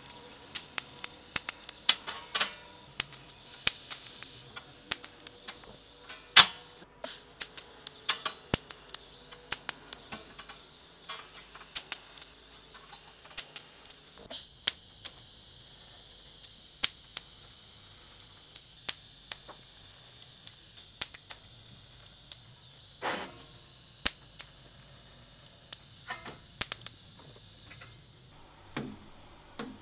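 TIG welding on stainless-steel tube with an Arccaptain 200P AC/DC welder: a faint steady high-pitched whine with many scattered sharp ticks and clicks. The whine stops near the end.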